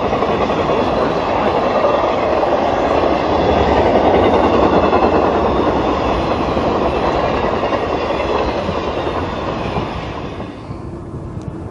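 Intermodal freight train cars rolling past: a steady loud noise of steel wheels on rail. It falls away noticeably near the end.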